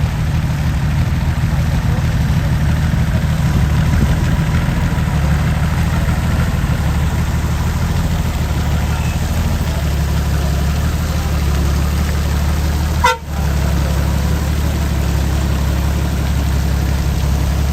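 Heavy diesel engine of a construction machine running steadily at a constant speed. The sound cuts out for an instant about thirteen seconds in.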